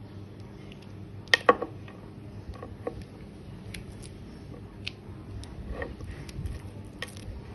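Scattered clicks and taps of small plastic electronics-kit modules being handled and connecting wires plugged in, the loudest a pair of sharp clicks about a second and a half in.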